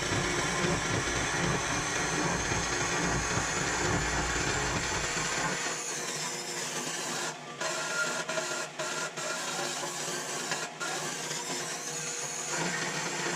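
A power tool running steadily while cutting steel, with several abrupt cuts in the sound. About halfway through the low rumble stops and a high whine falls, then rises again near the end.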